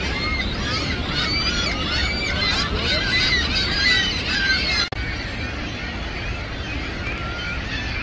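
A colony of gulls calling all at once, many overlapping squawks and cries. An abrupt break comes about five seconds in, after which the calls are fainter.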